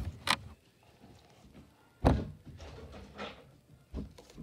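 A few dull thumps and knocks, the loudest about two seconds in, with soft rustling between them.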